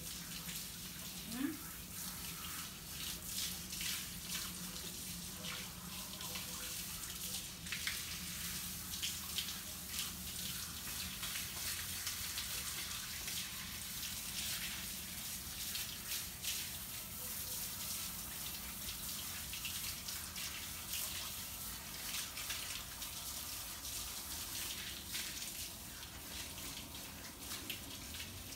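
Water spraying from a garden hose onto a dog's wet coat and splashing on patio pavers: a steady hiss broken by irregular splashes.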